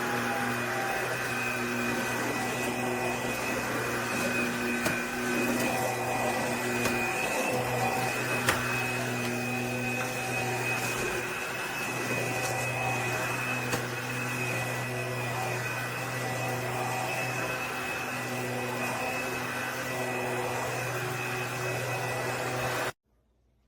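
Bissell PowerClean 200W cordless stick vacuum running steadily, a hum with a high whine over it and a few light clicks. It stops suddenly near the end.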